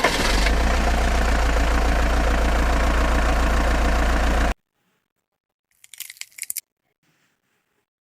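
A motor running steadily with a low hum, cutting off suddenly after about four and a half seconds, followed by a short crackle about six seconds in.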